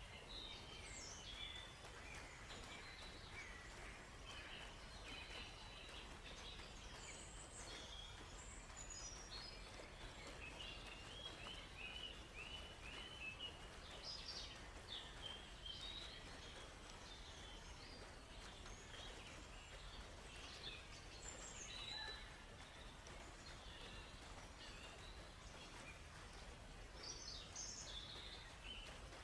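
Several songbirds chirping and calling in a forest, overlapping, with a quick run of repeated notes about eleven seconds in, over a faint steady background hiss.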